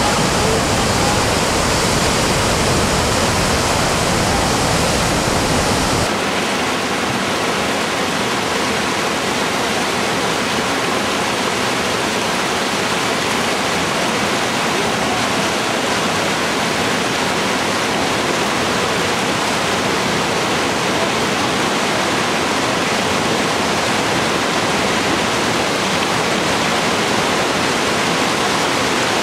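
Whitewater rapids rushing loudly through large boulders: a steady, dense wash of water. About six seconds in the sound changes abruptly and loses much of its deep rumble.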